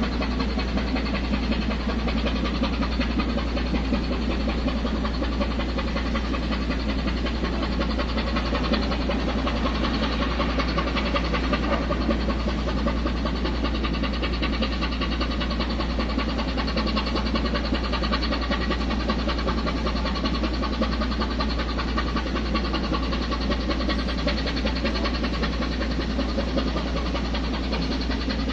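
A large engine or machinery running steadily at a constant pace, a deep low hum under a dense mechanical rumble with no change in speed.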